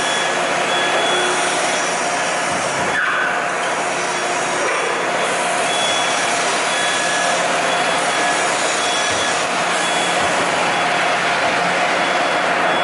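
Ficep Gemini HD CNC plasma cutting machine running with a loud, steady hiss and hum. A short high warning beep sounds about once a second.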